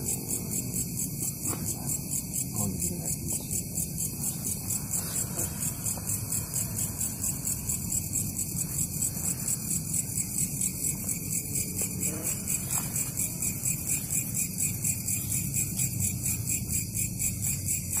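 Night insects chirping in a steady, high-pitched, rapid pulse, about four chirps a second.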